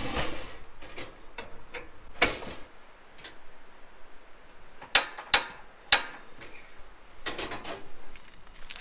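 Two-burner camp stove being opened and handled, with a couple of knocks, then three sharp clicks about five to six seconds in, typical of its push-button igniter being fired to light a burner.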